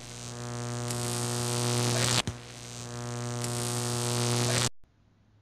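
Intro sound effect: a steady, buzzing synthesized drone under a rising hiss. It swells twice, with a sharp click between the swells, then cuts off suddenly near the end.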